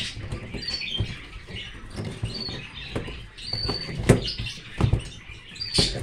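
Handling noise from a homemade sandwich-panel bird cage: scattered clicks, rattles and knocks as its removable partition and wire mesh are moved, with a sharper knock about four seconds in. A few short high bird chirps are heard between them.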